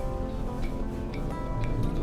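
Music with held notes and a steady ticking beat, about two beats a second.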